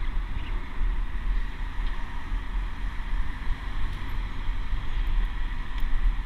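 Wind rumbling over a cyclist's camera microphone while riding, with road and traffic noise from the car just ahead.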